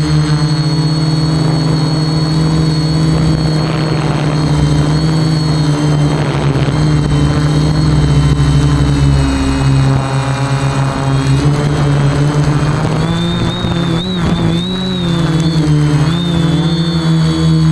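Quadcopter motors and propellers whirring in a steady pitched hum. The pitch wavers up and down in the last few seconds as the throttle changes.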